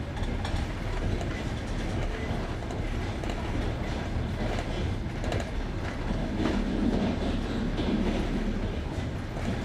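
Wheels of a passenger train running over jointed rails, heard from aboard the train: a steady rumble with the clickety-clack of the rail joints. A louder low drone swells for a couple of seconds past the middle.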